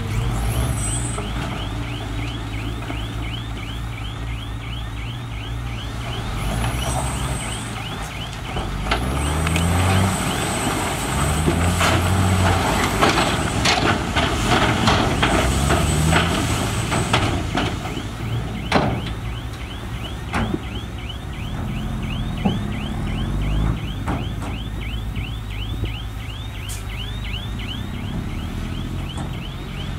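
Heavy diesel earthmoving machine running. Its engine revs up and down several times in the middle. Scattered sharp knocks sound over it, along with a fast, high squeaking rhythm.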